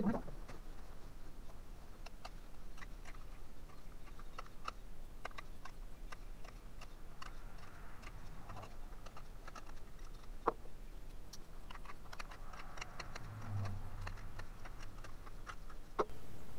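Faint, irregular clicks and scrapes of a small knife paring green cherry wood off the bottom of a bowl, sped up sixfold so the cuts run together like rapid ticking.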